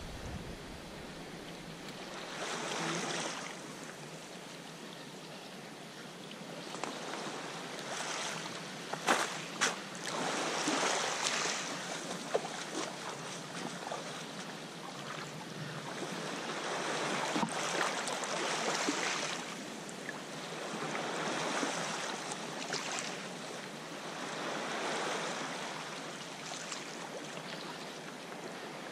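Water washing and splashing around a wooden sea kayak as it is paddled, swelling and fading every few seconds with the strokes. A few sharp ticks stand out about a third of the way in and just past halfway.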